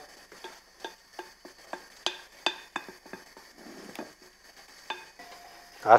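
Wooden spoon knocking and scraping against a glass bowl as steamed vermicelli is tossed and loosened, a scatter of light irregular taps.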